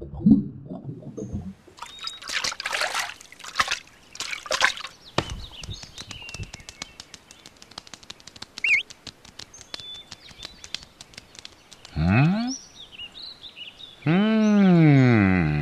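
Cow mooing twice near the end: a short rising moo, then a longer, louder one that rises and falls in pitch. Before it come a few seconds of noisy rushing sound, then scattered clicks and faint bird chirps.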